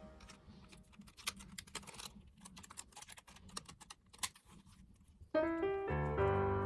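Scattered faint clicks and taps for about five seconds, then piano music starts abruptly near the end.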